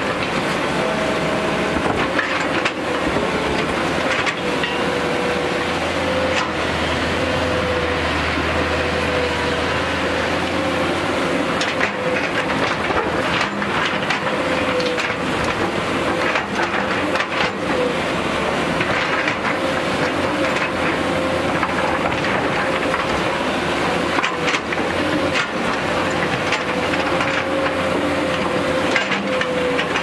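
JCB tracked excavator working: its diesel engine runs steadily under load with a steady whine, while the bucket scrapes through rocky soil and stones clatter and knock.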